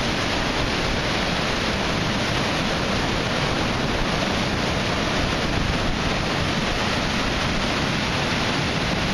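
Heavy tropical-storm surf breaking and churning around the concrete pilings under a pier, a steady rush of foaming water with no let-up.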